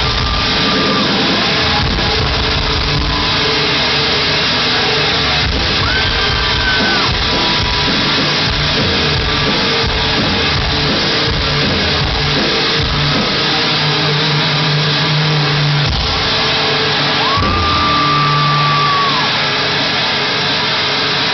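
Metalcore band playing a heavy breakdown live in a concert hall: a loud, dense wall of sound from the band, with a few high held notes standing out over it.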